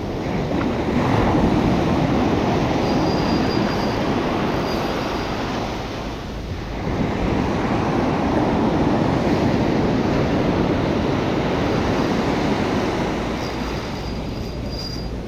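Surf breaking on a sandy beach, a rushing wash that swells and fades, rising twice with a lull about six seconds in.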